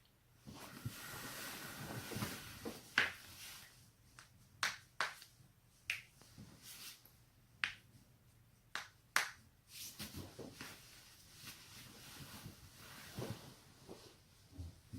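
A person's joints cracking: a string of sharp pops, about eight of them spaced roughly a second apart. Soft rustling sounds come between them.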